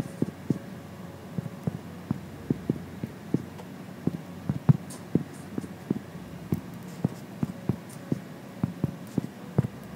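Fingertips tapping on an iPad's glass touchscreen while typing on the on-screen keyboard: short dull taps at an uneven pace, about two to three a second.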